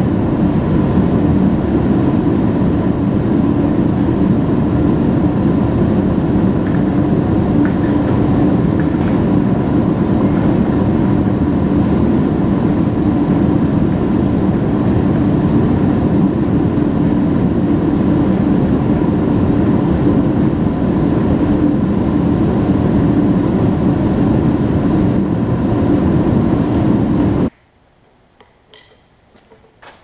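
Loud, steady mechanical running noise with a faint whine in it, cutting off abruptly near the end. A few faint metal clinks follow.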